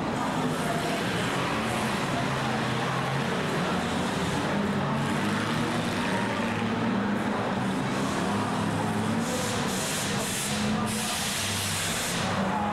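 Several banger-racing cars' engines running together as they race around the track, a steady mix of engine and tyre noise.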